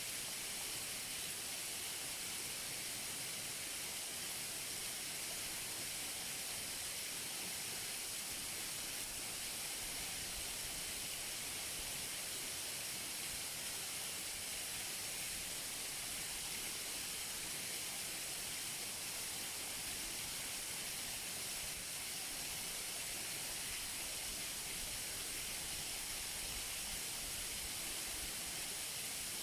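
Waterfall rushing steadily: an even hiss of falling, splashing water, brightest in the high range, with no change in level.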